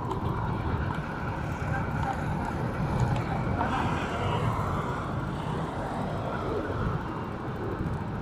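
Steady road traffic noise from vehicles running along a busy city road.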